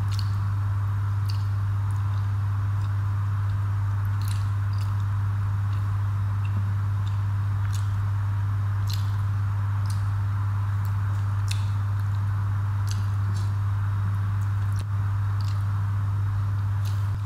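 Close-up wet eating sounds: mouth smacks and squishy clicks of someone chewing rice and curry eaten by hand, scattered irregularly through. Under them runs a loud, steady low hum.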